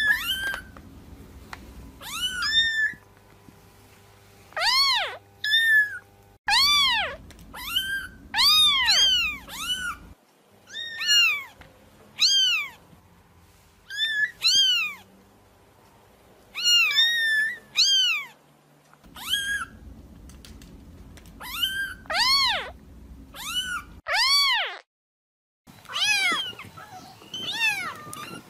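Kittens meowing over and over: short, high calls that rise and fall in pitch, often two or three in quick succession, with brief pauses between.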